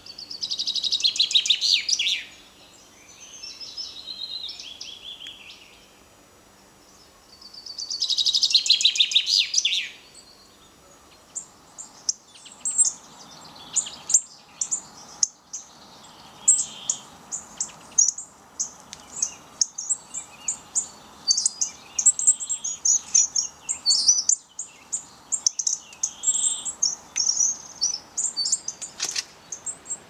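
Male chaffinch singing: two loud song phrases of about two seconds each, every one a rapid trill, with a fainter song between them. From about eleven seconds in, a long run of short, sharp, high call notes follows.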